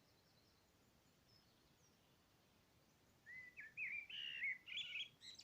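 A songbird singing one short warbling phrase of rising and falling notes, starting about three seconds in after a near-silent stretch.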